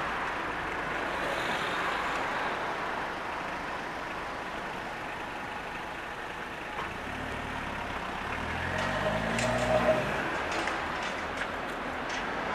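Steady street and traffic noise, with a heavy vehicle's engine rising in pitch as it pulls away about seven seconds in, followed by a few sharp clanks.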